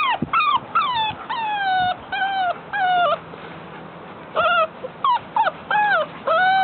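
Pit bull puppy whining in a run of about ten high, mostly falling cries, with a pause of about a second midway. It is eager to play with the bigger dogs.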